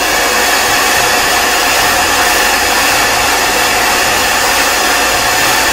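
Handheld hair dryer running steadily, blowing on hair: a loud rush of air with a steady motor whine.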